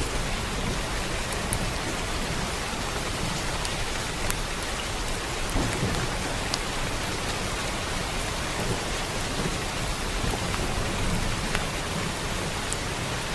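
Steady rain falling, an even hiss with scattered sharp drop ticks and a low rumble underneath.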